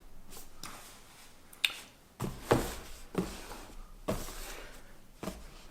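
A handful of sharp clicks and light knocks, about six spread over the few seconds, like hard objects being handled and set down in a small room.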